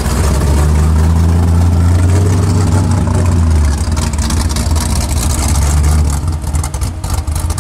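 Lifted square-body Chevrolet Scottsdale pickup's engine running at a steady low drone as the truck crawls through deep snow, easing off about six seconds in.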